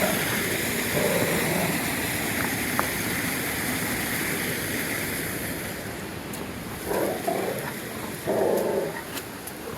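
Steady rushing of a mountain creek, with three short, low whine-like vocal sounds: one about a second in and two near the end.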